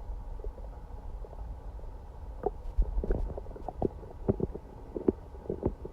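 Human stomach gurgling and rumbling: a low rumble under a run of short, irregular, bubbly gurgles that starts about halfway in. It is an upset stomach the day after a night of sickness, sounding like something swimming in the belly.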